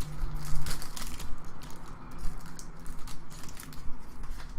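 Trading-card pack wrapper crinkling and cards rustling as a pack is opened and handled, with sharp crackles in the first second and softer rustling after; a low hum comes and goes.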